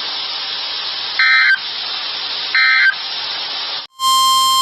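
Weather radio between broadcasts: a steady hiss with two short electronic beeps about a second and a half apart. Near the end the sound drops out briefly and a steady single-pitched alert tone near 1 kHz begins, the NOAA Weather Radio warning alarm tone.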